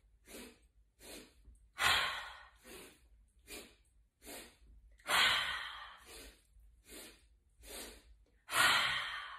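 A woman doing the yoga Breath of Joy: three short, quick inhales in a row, then one long, louder exhale. The round is repeated three times, with the exhales about 2, 5 and 9 seconds in.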